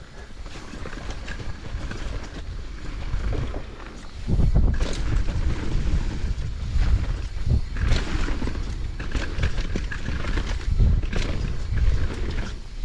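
Mountain bike descending a rough trail: tyre rumble over dirt with frequent knocks and rattles from the bike, and wind buffeting the microphone. It gets louder and rougher about four seconds in as speed picks up.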